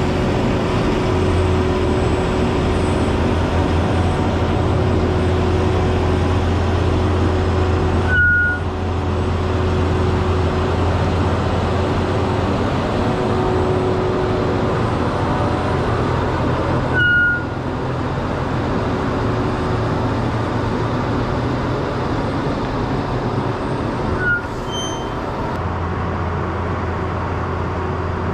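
Off-wire trolleybus driving slowly, a steady running noise over a low hum. A short high squeak comes three times, each with a brief rise and shift in the sound.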